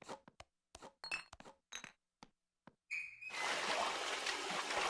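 Cartoon sound effects: a run of short, light glassy clinks and taps, then a brief high tone and a steady hiss starting about three seconds in.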